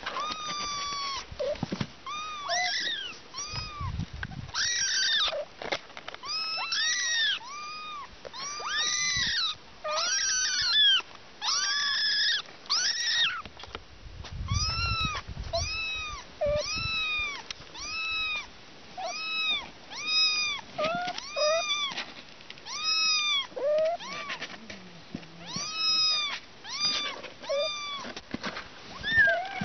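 Young kittens mewing over and over: short, high-pitched calls that rise and fall in pitch, about one a second, at times two kittens calling at once.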